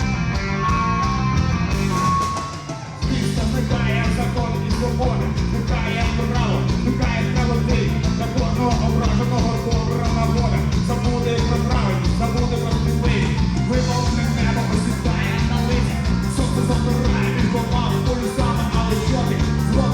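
Rock band playing live: sustained guitar lines at first, a short drop about two to three seconds in, then the full band with drums comes in and plays on steadily.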